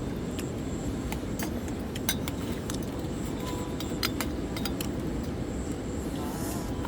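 A steady low rushing rumble with scattered light clicks and clinks of small hard objects, sharpest about two and four seconds in.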